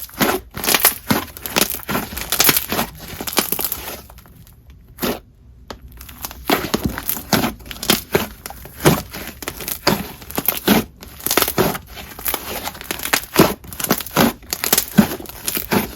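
Hands squishing and stretching a coated jelly slime, giving a quick irregular run of crackles and pops, with a short quieter pause about four seconds in.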